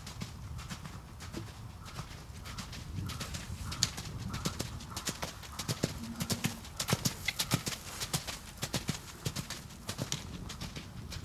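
Hoofbeats of a cantering horse on arena dirt, a steady run of thuds and clicks that grows louder and sharper in the middle of the stretch.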